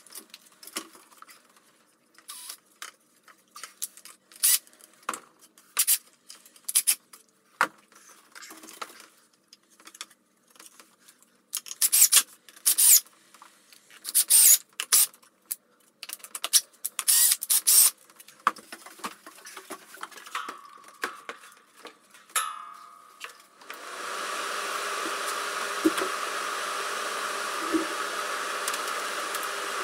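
Cordless drill driving screws into a wooden wall cleat in short bursts, among knocks and clicks of handling. About three-quarters of the way through, a fan motor starts and runs as a steady blowing hum, the air cleaner's fan.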